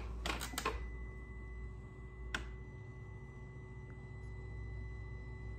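A few clicks as the ignition of a BMW S1000RR is switched on, with another click a little after two seconds in. Then a faint, steady high-pitched electrical whine from the bike powering up, with the engine not yet running.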